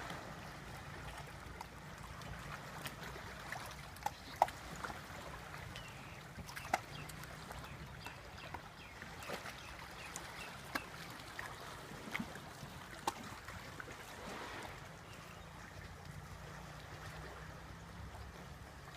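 Water lapping and splashing in small irregular plips against a boat, over a steady low hum of a boat motor.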